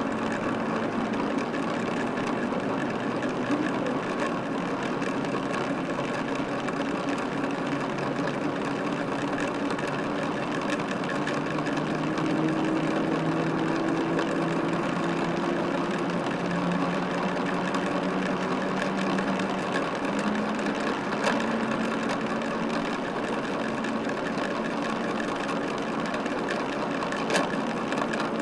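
Jet airliner engines running: a steady rush of engine noise with low tones that slowly rise and shift in pitch.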